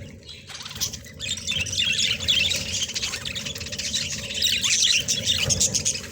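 A flock of budgerigars chattering, many rapid overlapping chirps and squawks.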